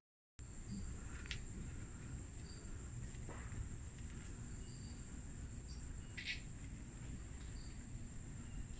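Insects making a steady, high-pitched drone: a single unbroken tone that cuts in abruptly a moment in, with a few faint chirps and clicks over it.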